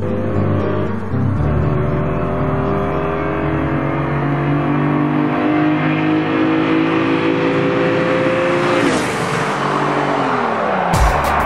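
Stock Lamborghini Diablo VT's V12 accelerating toward the microphone, its pitch climbing steadily, then passing close by about nine seconds in, with a drop in pitch as it pulls away.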